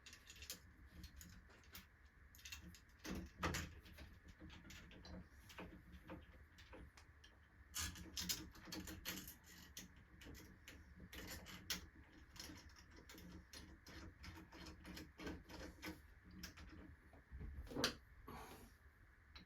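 Screws being driven by hand into a doorknob set: a long string of small irregular clicks and taps, with a few louder knocks, the loudest near the end.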